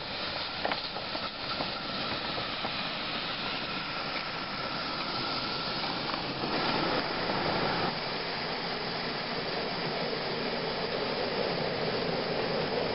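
Miniature live-steam locomotive hissing steam: a continuous, even hiss with a steady high note through the first half.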